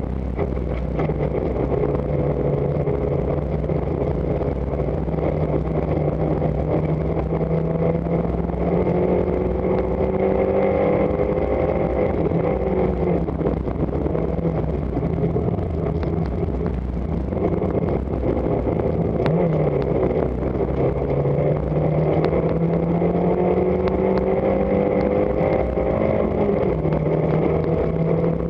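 Rally car engine heard from inside the cabin, driven hard on a special stage: the revs climb and drop repeatedly as it pulls up through the gears and shifts, over steady road and tyre noise.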